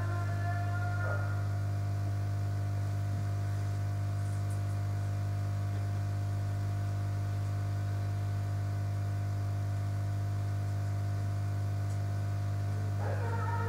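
Steady low electrical hum, mains hum, unbroken throughout. Music fades out about a second in and comes back near the end.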